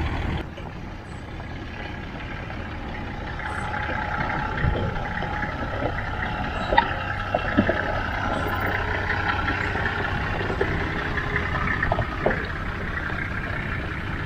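Engine of a four-wheel-drive vehicle running as it drives off-road, a steady rumble with scattered knocks and clicks from the rough track.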